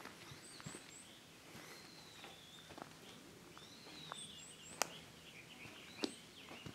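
Small birds calling in the trees, in quick runs of three short high chirps and longer calls that rise and fall. Under them are a few slow footsteps on a gravel path, one sharper than the rest a little under five seconds in.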